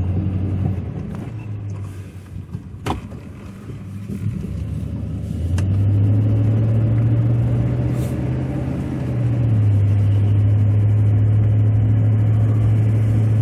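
Chevrolet Silverado pickup's engine heard from inside the cab, idling and then pulling away and accelerating from about five and a half seconds in, its note dropping a little around nine and a half seconds in as it carries on at a steady speed. Two sharp clicks, about three and eight seconds in.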